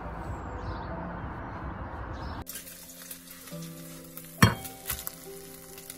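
Steady outdoor noise with no clear calls. Then, after a sudden cut, soft background music with a sharp clink of tableware about four and a half seconds in and a lighter one half a second later.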